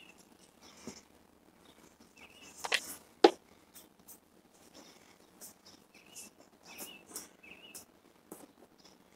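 Garden hose being pulled and handled over grass, with scattered rustles and clicks and two sharp knocks about three seconds in, the second the loudest. Small birds chirp briefly now and then.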